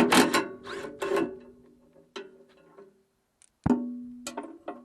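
Irregular metal clanks as steel machine parts or a cover are handled. Each clank leaves a ringing tone at the same pitch, with a hard bang about three and a half seconds in.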